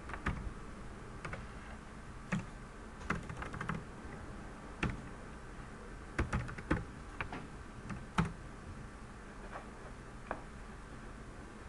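Computer keyboard typing, irregular keystrokes clicking singly and in short runs.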